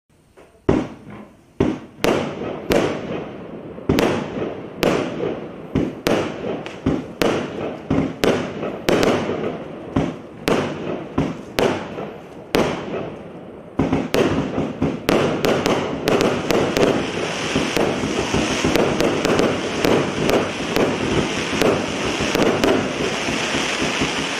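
A 192-shot firework cake firing: a string of sharp bangs, about one or two a second, each trailing off in crackle. About fourteen seconds in, the shots come much faster and merge into a dense, continuous crackling and hiss.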